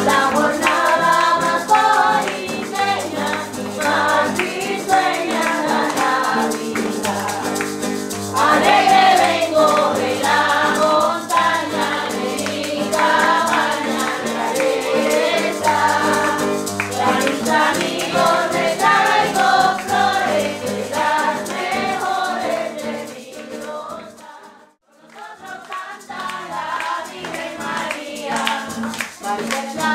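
A group singing a Christmas posada carol together over musical accompaniment, with a rattling percussion keeping time. The music drops away briefly about 25 seconds in, then starts up again.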